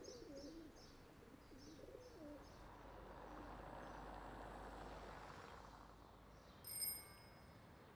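Faint outdoor ambience: small birds chirping and a pigeon cooing in the first couple of seconds, then a soft background hum. It ends with a short, bright metallic ring just before the end.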